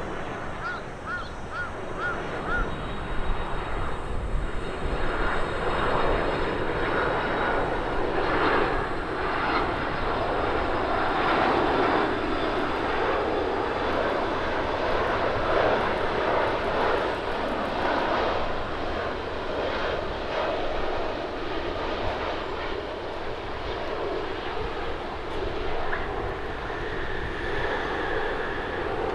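Jet engine noise of an All Nippon Airways Boeing 767-300ER twin-engine airliner on final approach with gear down: a broad, steady rumble that swells a few seconds in and then holds. About a second in there is a quick run of five short, high chirps.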